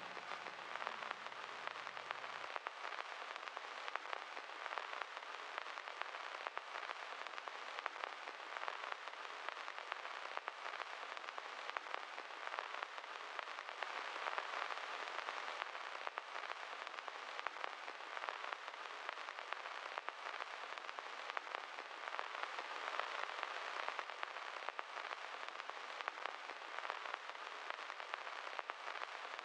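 Faint, steady crackling hiss dense with tiny clicks, with no voice or tune.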